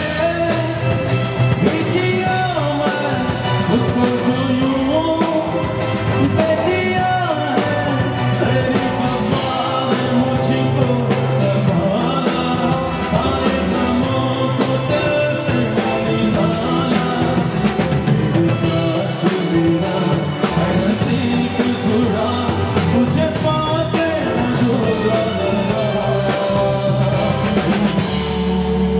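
Live band music: a man sings into a microphone over drum kit, hand percussion and keyboards, amplified through a PA.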